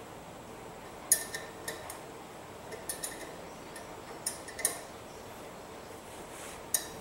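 A metal hand tool clicks and clinks against metal in a few short, irregular groups as a bracket and its stud are fastened under the hood. The clicks are sharp, with a light metallic ring.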